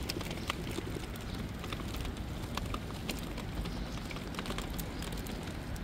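Street ambience in the rain: a steady low rumble with irregular sharp ticks scattered throughout.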